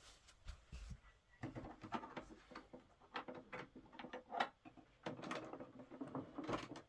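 Faint scattered clicks, taps and rustles of handling in a small room, starting about a second and a half in and thickening near the end.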